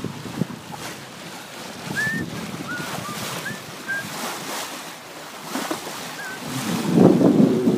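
Wind buffeting the microphone and water washing along the hull of a sailboat under sail, with a few faint short high chirps in the middle. The wind noise swells louder near the end.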